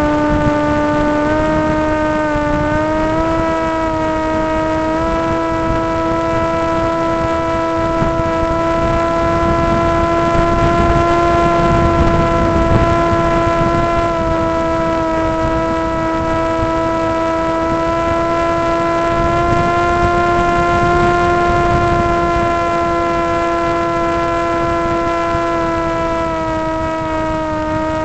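Electric motor and propeller of an FPV model aircraft, heard through its onboard camera: a steady whine with many overtones that steps up in pitch a few times in the first five seconds and dips slightly near the end. Low wind rumble from the airflow over the microphone runs underneath.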